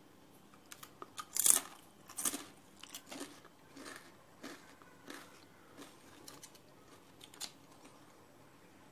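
Thin, crisp homemade potato chips crackling and snapping as they are broken in the fingers: a string of sharp crunches about every half second to second. The loudest comes about a second and a half in, and they grow fainter toward the end. It is the crunch of well-fried, crispy chips.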